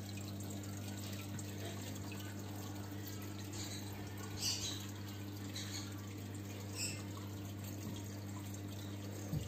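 Aquarium filter or pump running: a steady low hum with water trickling and a couple of brief soft splashes.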